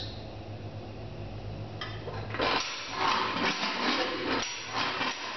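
Cutaway four-cylinder horizontally opposed aircraft engine being turned over by hand at the propeller, its pistons, valve gear and other moving parts giving a dense mechanical clatter. The clatter starts about two seconds in and is loudest for the next few seconds.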